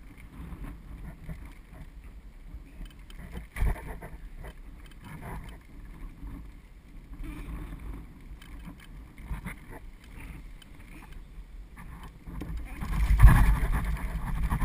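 Bicycle trailer rolling over pavement: a steady low rumble and rattle from the trailer and its tow bar, with a sharp knock about three and a half seconds in and a louder stretch of rumble a second or two before the end.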